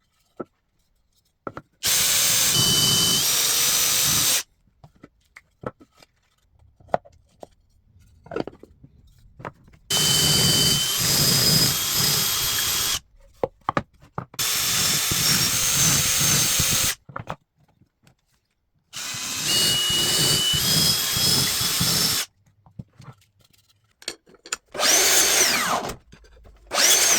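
Electric drill boring holes in wood for dowels, run in bursts of two to three seconds: four long runs, then two short ones near the end. Light knocks and clicks come between the runs.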